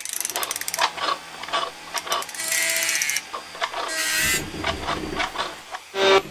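Mechanical sound effects: rapid clicking and ratcheting with two short whirring runs, like gears and a motor-driven carriage. A loud pitched, tone-like sound starts near the end.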